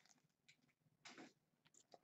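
Near silence, with a faint brief rustle of trading cards shifting in gloved hands about a second in, plus a few tiny clicks.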